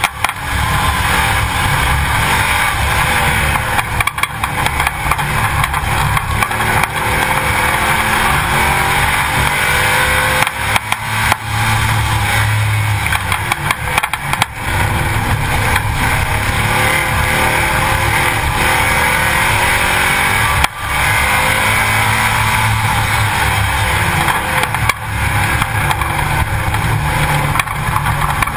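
Race car on slick tyres driving at speed, heard from a camera in the wheel well: the engine's pitch rises and falls as it speeds up and slows, over a steady rush of tyre and wind noise, with a few brief dips in loudness.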